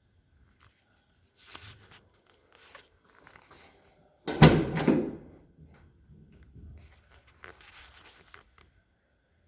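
A few short knocks and rustles, then one loud thump about four and a half seconds in that rings down for about a second.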